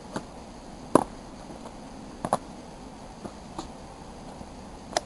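Footsteps and scuffs on dry leaves and rocks: a few separate short crunches and taps, the loudest about a second in, over a steady outdoor hiss.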